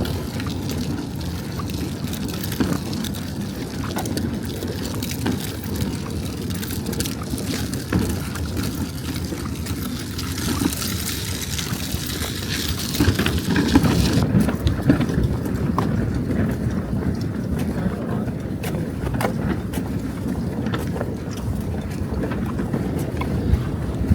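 Wind buffeting the microphone outdoors: a steady low rumble with a hiss that thins out about halfway through.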